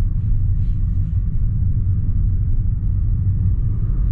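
Steady low rumble of a Toyota sedan driving, heard from inside the cabin: road and engine noise.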